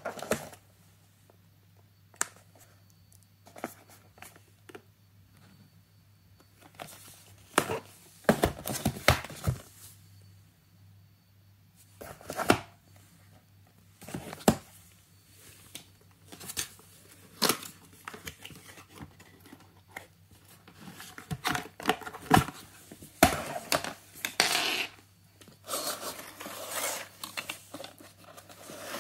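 Cardboard retail box of a gaming mouse being handled and opened: scattered taps, knocks and scrapes of the box, with longer stretches of tearing and crinkling about a third of the way in and near the end.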